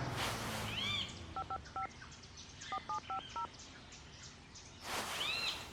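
Telephone keypad dialing tones: three short two-tone beeps, then after a pause about five more. Birds chirp briefly, and a hiss swells and fades twice.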